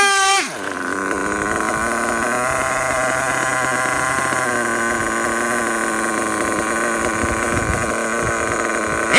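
Dynamite .28 nitro engine in an RC truggy running at high, fairly steady revs while the truck drives, with a sharp drop in pitch right at the start and again at the end. The engine is freshly broken in and tuned on the rich side.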